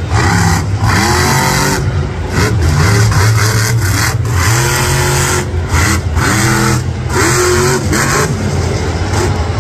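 El Toro Loco monster truck's supercharged V8 revving hard in repeated bursts, its pitch climbing and falling, with the throttle snapped shut for a moment about eight times.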